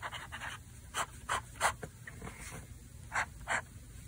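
Platinum fountain pen with a medium nib scratching across Hobonichi grid paper in about six short, quick strokes.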